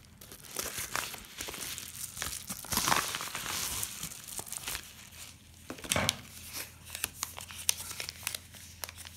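Paper packaging crinkling and rustling as a kraft bubble mailer is handled and a folded paper packet is pulled out and unfolded, with scattered light clicks. A louder rustle comes about three seconds in and a dull knock about six seconds in.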